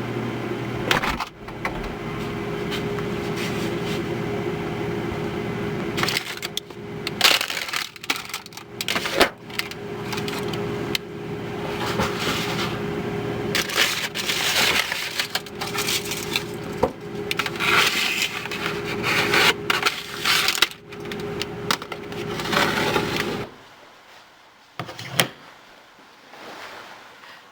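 Repeated crunching and crackling, as of crisp food being bitten and chewed, over a steady low hum. The hum cuts off about three-quarters of the way through and the rest is much quieter.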